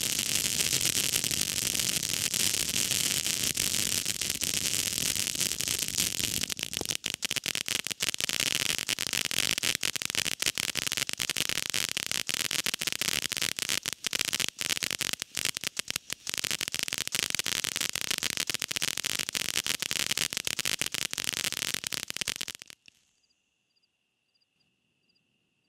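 A 200-gram firework fountain spraying sparks with a steady hissing rush, breaking into rapid crackling from about a quarter of the way in. It cuts off suddenly near the end, leaving crickets chirping.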